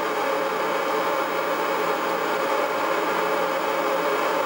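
Speaker fed by a chaotic network of NE-2 neon bulbs, resistors and capacitors, sped up so the neons fire in quick succession: a steady, dense buzzing hiss with faint tones running through it, called freaky and Atari 2600 like.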